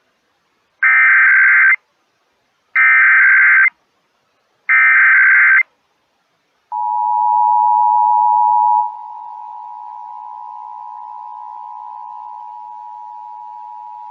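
Emergency Alert System required monthly test: three short bursts of SAME header data, the digital code that carries the alert's event, area and time, each just under a second long and about a second apart. Then the EAS two-tone attention signal begins, a steady dual tone that drops in level about two seconds after it starts.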